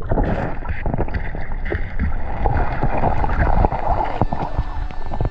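Muffled water sloshing and churning with many dull knocks, heard through a submerged camera housing as a released white sturgeon swims off past it.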